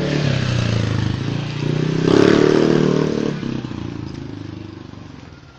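Small motorcycle engine running as it passes, loudest about two seconds in, then fading away as it rides off up the street.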